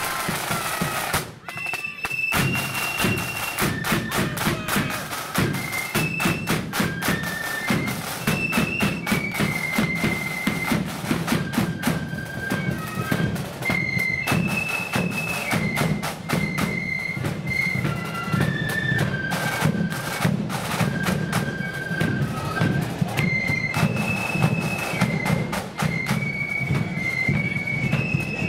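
Marching flute band playing a tune: massed flutes carry a high melody over rattling side drums and a bass drum beat. The flutes come in about two seconds in, after a short dip.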